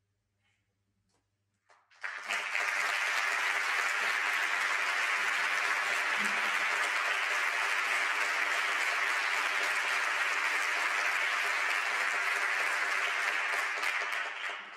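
Audience applauding: the clapping starts suddenly about two seconds in, holds steady, and dies away near the end.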